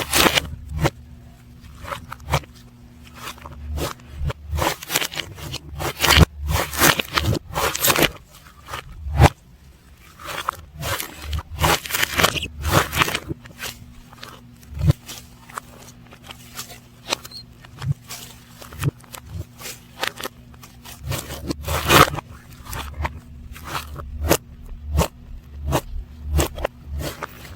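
Slime being squished, stretched and pressed by hand, played backwards: irregular sticky crackles, clicks and scraping. A faint steady hum runs underneath.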